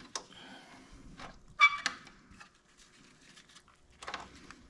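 Plastic fork cover being handled and pressed into place, giving a few light clicks and taps, with one sharper click about one and a half seconds in.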